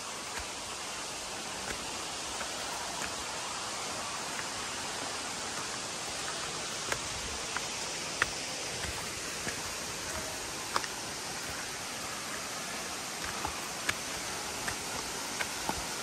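Steady rushing of a waterfall and its stream, with a few sharp clicks scattered now and then.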